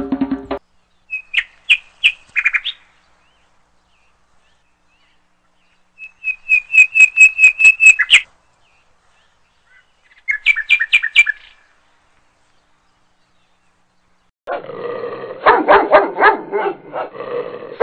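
Animal calls: three bouts of quick, high chirps repeated several times a second, then a lower, rougher pulsing call near the end.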